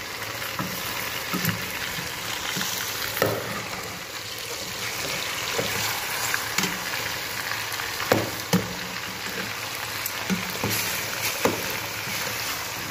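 Spice-coated chicken pieces sizzling in an aluminium pot while a spoon turns them, with sharp scrapes and knocks of the spoon against the pot every second or two.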